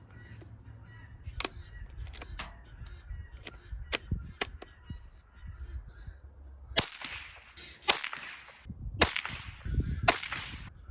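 Rossi .22 LR rifle firing four sharp shots about a second apart in the second half, each crack followed by a short ringing tail. Before them come a few faint clicks over a low rumble.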